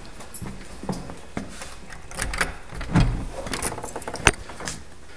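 Clicks, knocks and metallic jingling like keys being handled, with a heavy thump about three seconds in and a sharp, loud click a little after four seconds.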